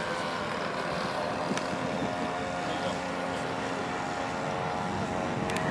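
Piston engine of a small vintage propeller biplane in flight, a steady drone.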